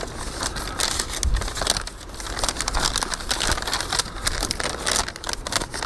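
A folded paper instruction sheet being unfolded and handled, crinkling and rustling in quick irregular crackles.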